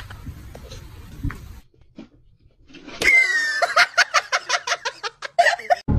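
A person laughing in a rapid run of short bursts, starting about halfway through after a near-silent stretch.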